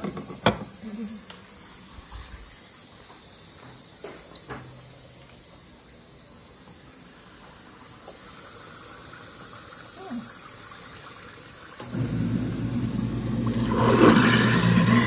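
Kitchen faucet turned on about twelve seconds in, water running steadily into a stainless steel sink, with a few light clicks before it.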